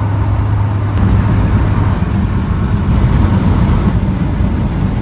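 Steady road noise of a car driving at motorway speed, heard from inside the cabin: a continuous low rumble with tyre and wind hiss.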